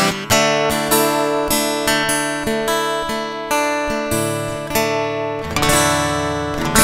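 Acoustic guitar strummed in slow, even chords, each chord ringing and fading before the next, about two strums a second.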